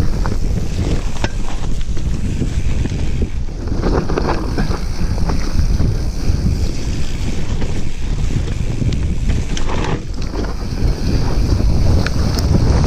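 Wind buffeting the camera microphone over the rumble of mountain bike tyres rolling fast down a rough dirt trail, with frequent short rattles and knocks from the bike over bumps.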